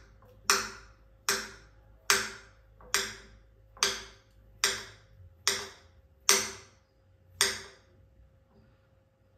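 Table knife cutting food on a ceramic plate, each cut ending in a sharp, ringing tap of the blade on the plate, about one every 0.8 seconds; the taps stop about 7.5 seconds in.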